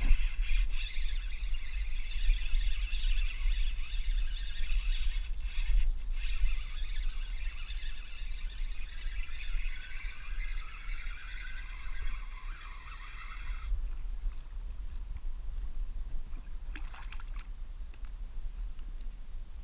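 Spinning reel whining as its handle is wound to retrieve a hooked pike, the whine sagging lower as the winding slows and stopping suddenly about 14 seconds in. A brief scrape near the end, over a steady low rumble.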